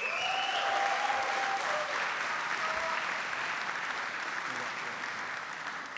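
Audience applauding, starting at once and slowly dying away, with one voice cheering briefly near the start.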